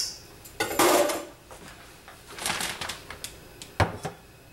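Handling noises: a plastic bag rustling as it is moved, then a stainless-steel mixing bowl set down on a stainless-steel stovetop with a sharp knock and a couple of lighter clinks near the end.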